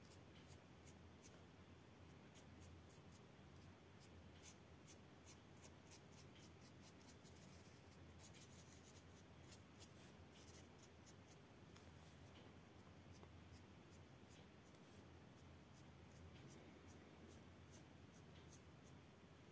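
Faint scratching of a felt-tip marker colouring on paper: a run of quick, short strokes, thickest in the middle.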